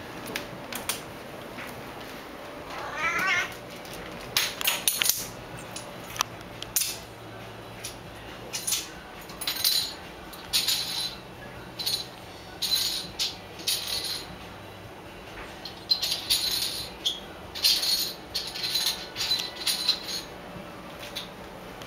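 A Singapura kitten gives one wavering meow about three seconds in, amid a long string of short sharp clicks and scrapes from a metal bottle cap being batted about the floor.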